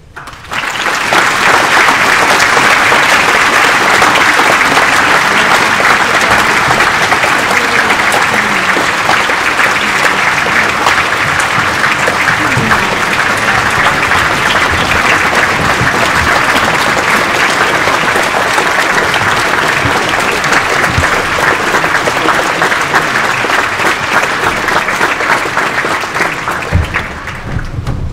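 Large audience applauding loudly, starting about half a second in and dying down near the end.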